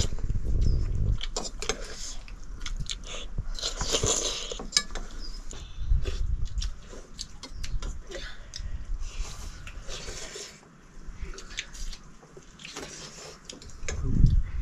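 People eating noodles: chewing and biting close to the microphone, with scattered sharp clicks.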